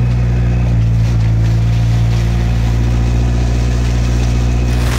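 Honda CB650R's inline-four engine running at a low, steady pace in first gear, pulling the motorcycle slowly up a steep incline.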